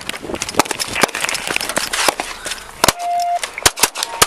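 Rapid, uneven volley of police handgun shots, a dozen or more sharp cracks in four seconds, the loudest about three seconds in.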